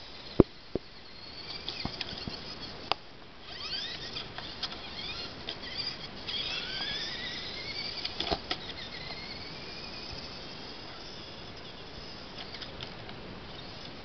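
Small electric motor of a 1/18-scale RC 4x4 truck whining, its pitch rising several times as the truck speeds up along the pavement. A few sharp clicks come in the first three seconds.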